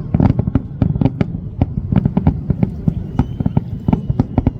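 Fireworks exploding in a rapid, irregular barrage: many sharp bangs a second over a continuous low rumble of booms.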